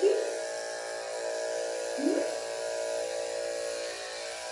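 Electric dog grooming clippers buzzing steadily on a schnauzer puppy's neck, while the puppy lets out two short rising cries, one at the start and one about two seconds in.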